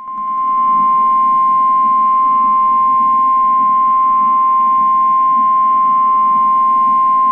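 NOAA Weather Radio warning alarm tone: a single loud, steady 1050 Hz tone over faint radio hiss, swelling up in the first half second. It is the signal that a warning broadcast follows, here a tornado warning.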